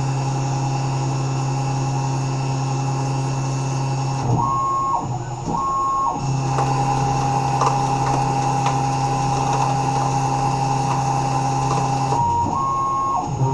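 Tormach 1100 CNC mill running as a lathe: a steady spindle hum with a high whine over it, changing tone twice for a second or two as the machine moves between cuts. Light scattered ticks in the middle stretch.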